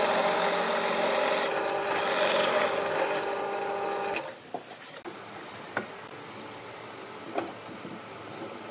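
Bench drill press running, its wide bit boring into a wooden disc: a steady motor hum under the rasp of cutting wood. About four seconds in it stops, followed by a few light knocks.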